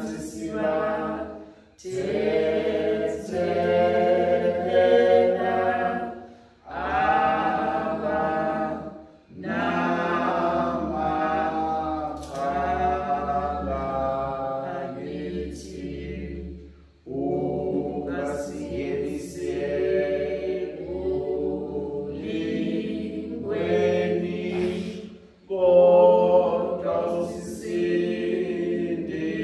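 Unaccompanied hymn singing, voices without instruments, in sung phrases of a few seconds each broken by brief pauses for breath.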